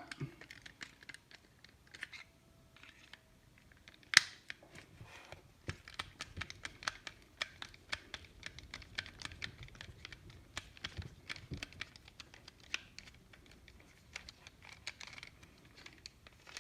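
Small irregular clicks and ticks of a screwdriver working a tiny screw out of a plastic rotary-controller housing, with one sharper click about four seconds in.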